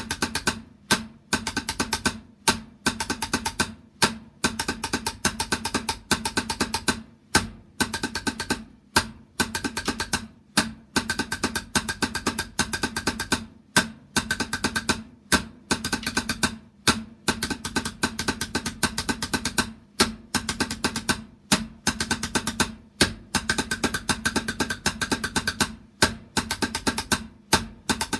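Drums played in fast runs of strokes, each about a second and a half long with a brief pause between them, repeating steadily.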